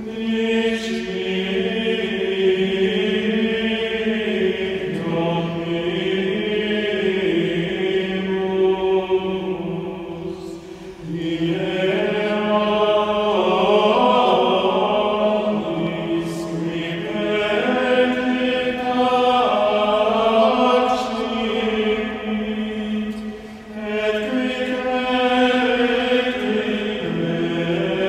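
Male vocal ensemble singing unaccompanied plainchant in long held phrases, with short breaks for breath about 11 and 23 seconds in. The voices ring in the reverberant space of a large stone cathedral.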